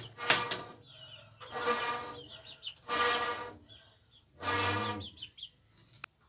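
Small birds chirping, with short loud bursts of sound repeating about every second and a half.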